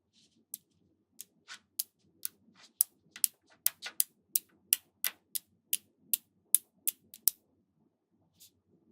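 Small magnetic balls snapping onto one another one at a time: a quick run of sharp clicks, about three a second, stopping about seven seconds in.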